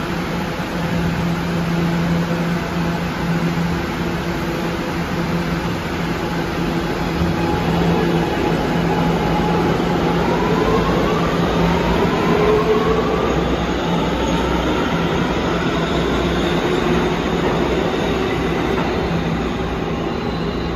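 Kawasaki R211 subway train pulling out: a steady hum at first, then from about halfway its traction motors give several whines rising in pitch as it gathers speed, over a constant rumble of wheels on rail.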